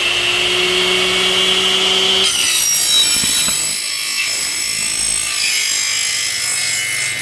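Double-head aluminium cutting saw with 305 mm blades: the blade spins with a steady motor hum and high whine, then a little over two seconds in it bites into an aluminium profile, cutting with a high ringing screech.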